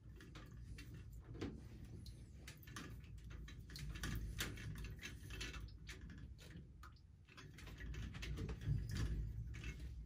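Irregular small clicks and rattles of hands working the wiring and fittings of a McDonnell & Miller No. 67 float-type low-water cut-off on a steam boiler as it is taken apart, over a low steady rumble.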